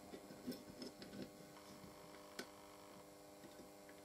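Near silence: faint steady mains hum, with a few small clicks in the first two and a half seconds as resistor leads are pushed into a circuit board.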